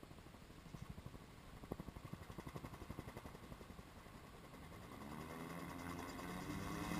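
Gyroplane engine: faint with a quick, even pulsing at first, then running steadily and growing louder from about five seconds in.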